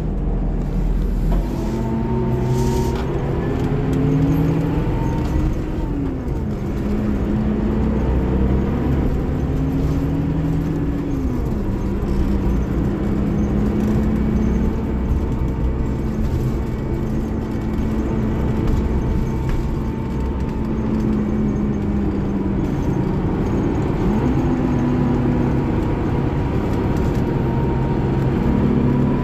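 Scania K360IB bus's DC13 inline-six diesel engine under way. Its note climbs and then drops suddenly about six and again about eleven seconds in, as the Opticruise gearbox changes gear. It then runs at a steady pitch before climbing again near the end, with a faint high whine running throughout.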